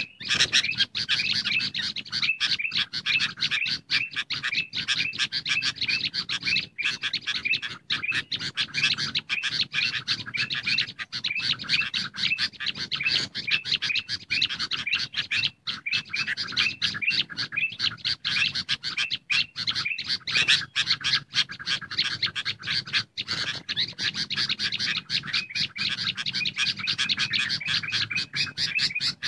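Busy, continuous chatter of bulbuls, many birds calling over one another in rapid repeated chirps: a bird-lure recording of sooty-headed bulbuls mixed with ruby-throated bulbuls.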